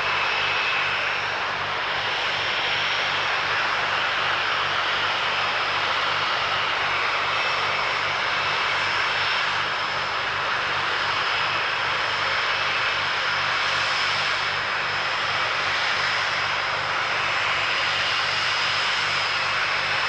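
Jet airliner's engines running steadily at takeoff power during the takeoff roll and climb, a continuous broad rush with a thin high whine over it.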